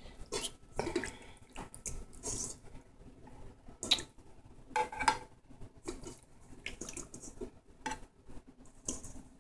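Raw chicken hearts handled by hand and dropped onto a stainless steel meat-grinder tray: irregular wet squelches and slaps, with sharper knocks about four and five seconds in.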